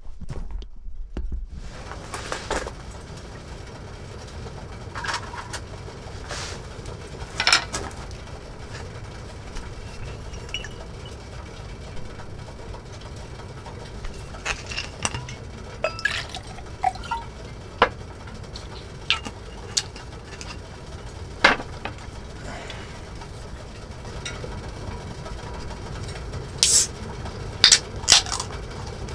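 Scattered sharp clinks and taps of utensils and dishes on a camp dinner table, over a steady low hum, with a quick cluster of louder clinks near the end.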